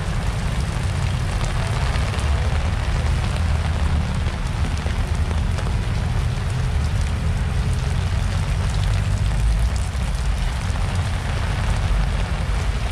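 Heavy rain falling steadily on umbrellas and plastic tarpaulin stall awnings, an even hiss with a low rumble underneath.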